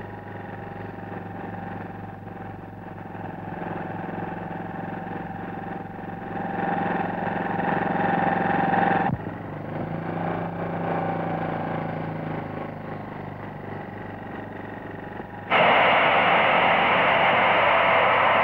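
Motorcycle engine running steadily, its note changing abruptly about nine seconds in. Near the end, loud guitar music cuts in suddenly.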